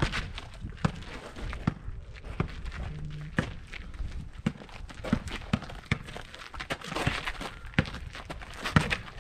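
Knocks and scuffs of a pickup basketball game: a basketball bouncing and shoes running on gritty, gravel-strewn ground, in irregular thuds every half second to a second.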